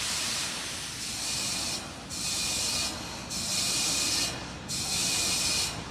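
Hiss of gas venting from the Terran 1 rocket on the launch pad after propellant loading, cutting out briefly about every one and a half seconds.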